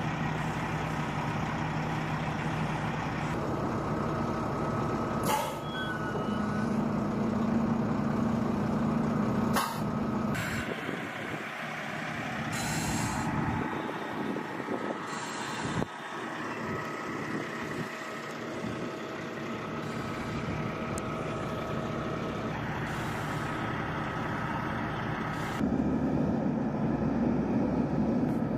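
A heavy vehicle's engine running steadily, with hissing air and a held whine over it; the sound changes abruptly several times as the shots change.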